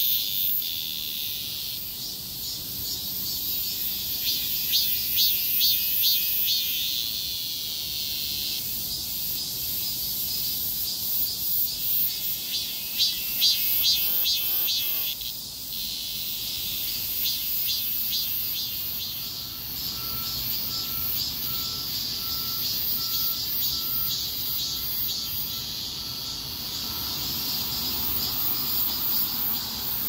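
A chorus of cicadas singing together in high summer heat: a steady, high, shrill buzz with pulsing, rhythmic calls that swell and fade over it.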